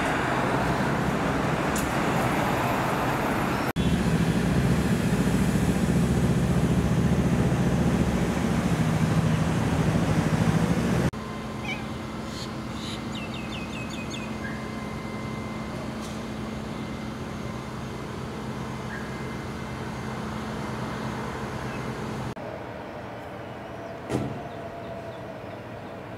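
Street cats meowing a few times, mostly in the middle, over steady outdoor street noise that is loudest in the first part. A single sharp knock near the end.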